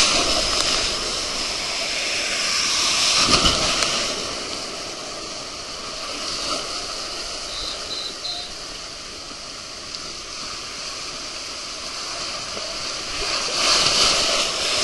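Water rushing and spraying along a water slide as a rider on a ring tube goes down it, a steady noisy rush that swells a few seconds in and again near the end as the tube splashes into the run-out pool.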